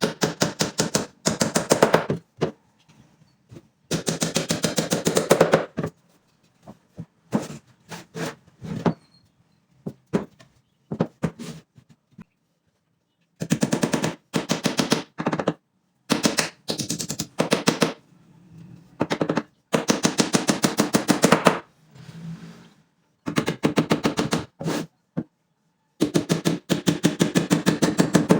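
Cordless impact driver hammering as it drives screws into wood, in repeated bursts of about one to two seconds, each a fast rattle of impacts.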